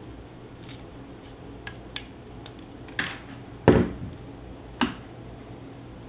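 Miter shears cutting a thin balsa wood strip: a run of small clicks, then snips, with the loudest snap of the blades closing through the wood about three and a half seconds in and a lighter click about a second later.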